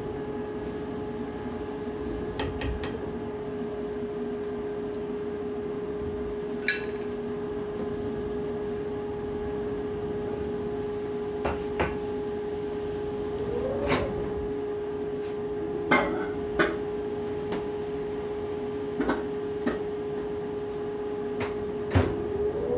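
A steady mid-pitched hum, like a running appliance, with a dozen or so short sharp clicks and knocks scattered through it, the loudest near the end.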